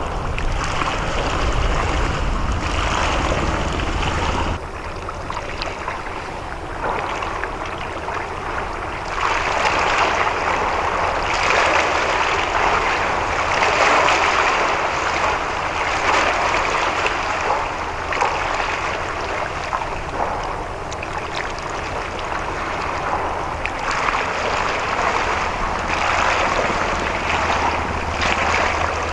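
Harbour ambience: wind buffeting the microphone and water washing, swelling and fading every few seconds, over a low rumble that drops away about four seconds in and comes back near the end.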